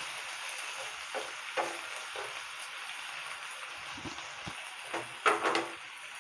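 A masala of onion, peas and chopped tomatoes with a little water sizzling steadily in a nonstick frying pan. It carries a few light clicks from a wooden spatula, then a couple of louder knocks about five seconds in.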